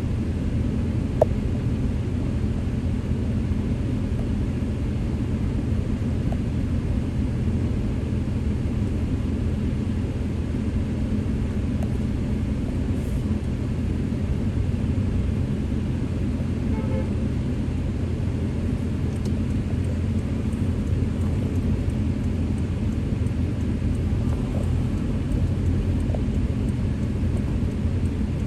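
Steady low rumble of street traffic with no clear break. A single sharp click about a second in is the loudest moment.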